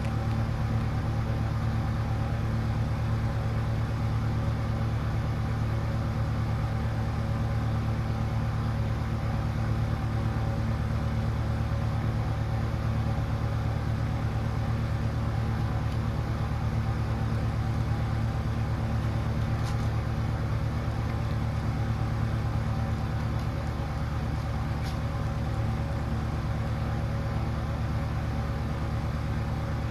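A steady, unchanging low mechanical hum with a faint hiss, such as a fan or appliance running in the room, with two faint ticks in the second half.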